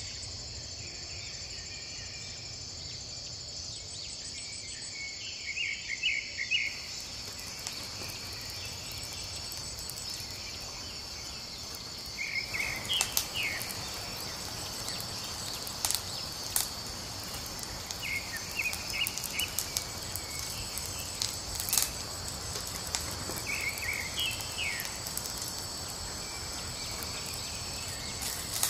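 Steady high-pitched insect chorus of crickets, with a bird giving short clusters of chirps every few seconds. From about twelve seconds in, scattered sharp crackles from the wood fire.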